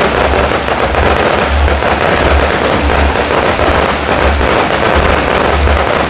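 Fireworks display going off in a dense, continuous crackle, set over the show's music, which has a steady bass beat.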